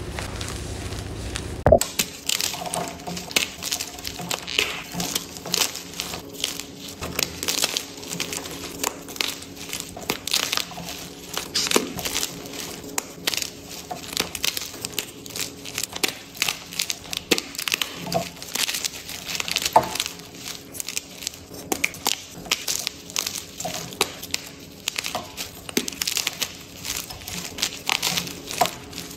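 Blocks and chunks of gym chalk crushed and crumbled between the fingers: dense, crisp crunching and crackling, with a sharp crack about two seconds in.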